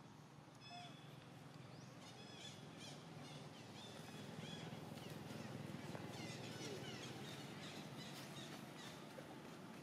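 Faint outdoor ambience with many short, high-pitched chirping animal calls scattered through it, over a low rumble that swells in the middle.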